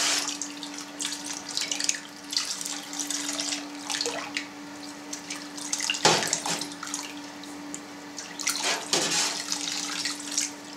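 Warm water pouring in a thin stream from a plastic scoop into a stainless steel vat of cheese curds and whey, trickling and splashing as the curds are stirred with a wooden spatula, with louder splashes about six and nine seconds in. This is the curd-washing stage, adding hot water to raise the curds to 37 °C. A steady low hum runs underneath.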